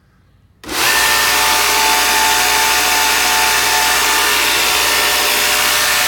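Home-built 2x72 belt grinder switched on about half a second in: its 1.5 HP, 3600 RPM motor comes up to speed almost at once, and the 36-grit zirconia belt runs free at about 4,700 feet per minute with a loud, steady rushing hiss and a faint whine. The running sound is called pretty mean.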